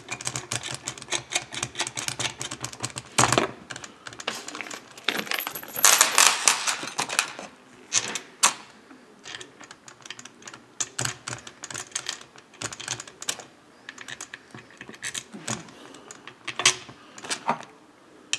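Rapid metallic clicking and clinking of a hand driver turning crankcase bolts into a chainsaw crankcase. It comes in two quick runs, at the start and again about five seconds in, with scattered single clicks after.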